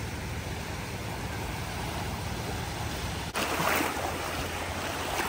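Small waves lapping and washing up on a sandy shore, with wind rumbling on the microphone; the sound breaks off briefly a little past three seconds in and picks up again slightly louder.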